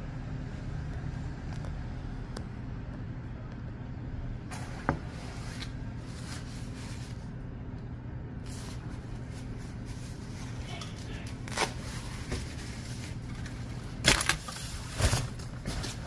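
Rain and traffic on a wet city street: a steady low hum with a hiss that comes and goes. Several sharp knocks break through, the loudest near the end.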